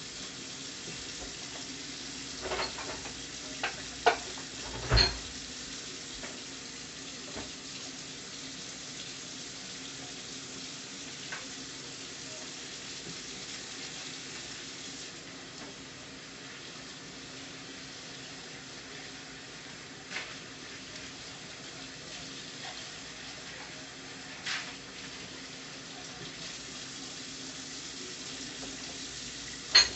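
A pan of taro stolons and shrimp curry sizzling steadily on the stove, over a low steady hum. A few sharp clicks come about 2.5 to 5 seconds in, the loudest near the end of that stretch, and two more come near 20 and 24 seconds.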